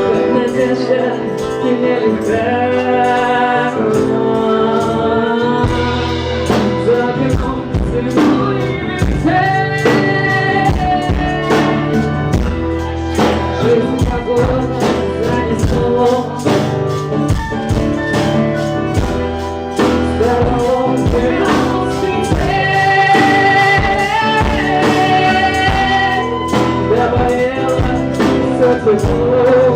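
Live band performing a rock song: singing over bass, guitar and drums keeping a steady beat.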